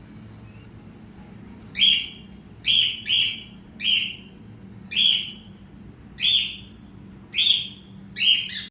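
Cockatiel calling: about two seconds in it starts a run of eight short, loud chirping calls, each sliding down in pitch, a little under a second apart.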